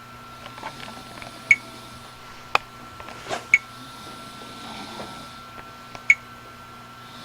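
Short high-pitched electronic blips repeating every two to three seconds, with a few sharper clicks between them, over a faint steady high whine.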